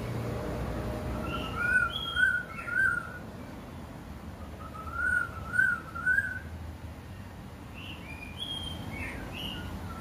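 A songbird singing clear whistled notes. It gives two runs of three wavering whistles, one about a second in and another about five seconds in, with short higher notes scattered around them and again near the end.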